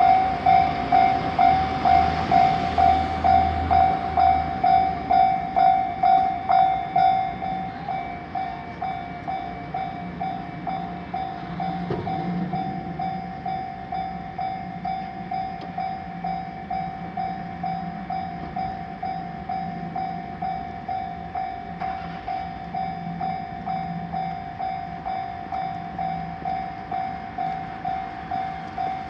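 Japanese level-crossing warning bell ringing steadily at about two strikes a second. A passing train's rumble fades away over the first few seconds, and the bell gets quieter about seven seconds in.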